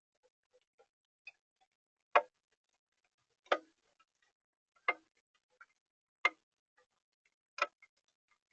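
Rainwater dripping at a steady rate: five sharp ticks about a second and a third apart, with fainter small ticks between them.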